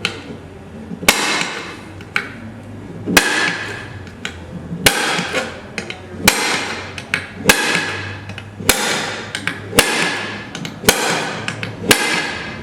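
Spring-loaded Papa-Dent tool with a mushroom-head bit snapping against a metal license plate, about ten sharp strikes a little over a second apart, each with a short metallic ring, as it lifts a deep dent out.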